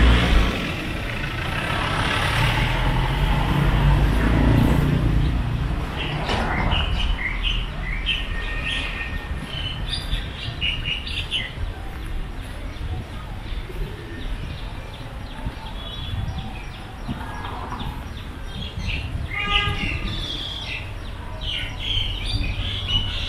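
Street ambience: a vehicle passes during the first few seconds, then small birds chirp in many short, high calls over a low traffic hum.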